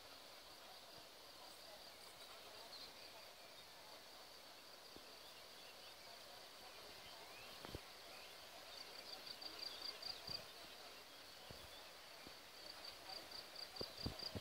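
Faint outdoor ambience with insects keeping up a thin, high, steady trill, which turns into quick pulsing chirps about two-thirds of the way in and again near the end. A few faint clicks are heard.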